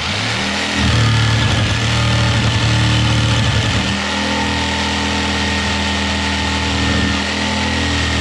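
Electric power saw running steadily while cutting an outlet opening along a marked line in a rough-sawn maple wall board, its tone shifting a little as the load on the blade changes. The blade has been smoking and scorching the wood, which the user puts down to needing a different blade.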